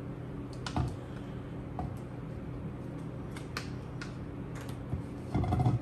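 Spatula clicking and scraping against a ceramic mixing bowl while scooping out cream cheese frosting: scattered light taps, with a louder knock near the end.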